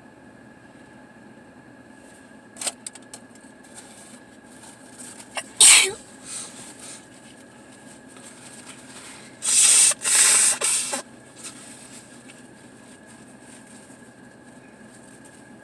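A person sneezing: one sharp sneeze a little over five seconds in, then a quick run of three loud, breathy sneeze bursts about four seconds later.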